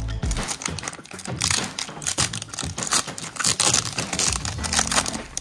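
Foil wrapper of a 2020-21 SP hockey card pack crinkling and tearing as it is ripped open by hand, in a quick run of irregular crackles.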